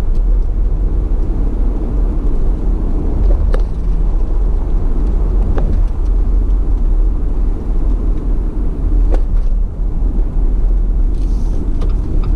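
Car driving at steady speed on a paved road, heard from inside the cabin: an even low rumble of tyres and engine, with a few sharp clicks from inside the cabin.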